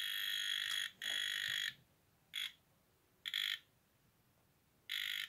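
Non-contact voltage tester pen beeping as it is passed along an electric-bike charger's cable and plug to trace a fault near the plug. There are two longer beeps in the first two seconds, then short beeps about a second apart.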